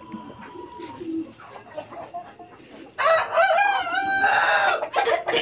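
Chickens clucking, then a rooster crows once about three seconds in, a wavering call under two seconds long.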